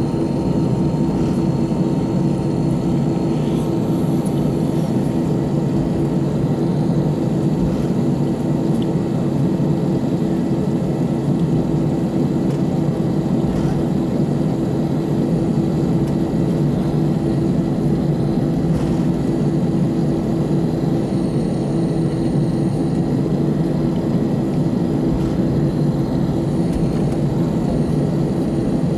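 Cabin noise of an Airbus A319 taxiing with its engines at idle: a steady drone with a constant hum and no change in level.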